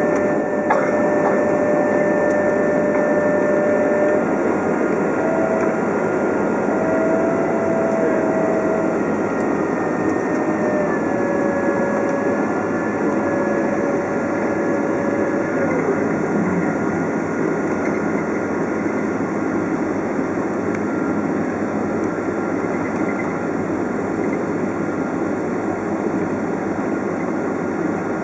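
Cabin noise of a Boeing 767 taxiing after landing: a steady rumble and rush with a few engine whine tones over it, which shift a little in pitch and stop about halfway through.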